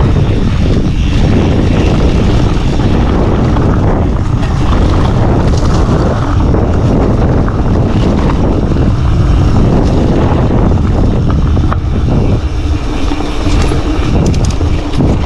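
Mountain bike being ridden over a rough trail: a loud, steady rumble of wind and trail noise on the microphone, with a few sharp clicks and knocks from the bike in the last few seconds.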